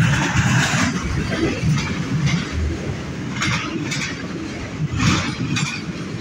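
CN freight train rolling past: a steady low rumble with rushing bursts of noise recurring every half second to a second.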